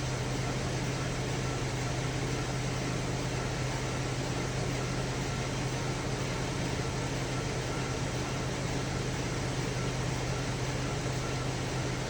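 A 2010 Chevy Traverse's 3.6-litre V6 idling, heard as a steady, even hum with a hiss over it, perhaps with the cabin blower running. The engine has stored misfire codes for cylinders 1, 3 and 5, but no stumble or break shows in this stretch of the idle.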